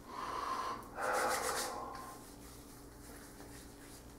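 Hands rubbing aftershave into the skin of the face and neck: two short rubs, the second about a second in.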